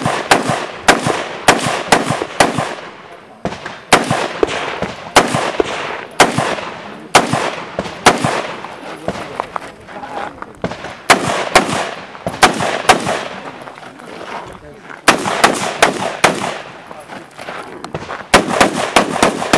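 Semi-automatic rifle fired in quick strings of shots, several a second, with short pauses between strings. Each shot has a brief echo after it.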